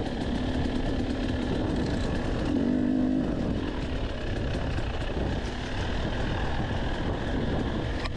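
Dirt bike engine running, heard from on board while riding a rough sandy trail, over wind noise and the clatter of the bike. The engine pitch rises briefly about two and a half seconds in, then settles.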